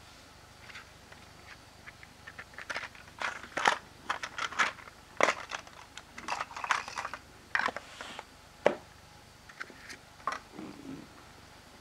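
Stiff clear plastic packaging being handled and opened: irregular crinkling, clicks and sharp snaps as the display case comes off and the toy train cars are pulled from their plastic base. It starts a couple of seconds in and is busiest in the middle.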